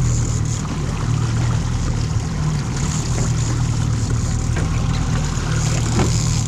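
Outboard motor running steadily at trolling speed, with water rushing past the boat's hull.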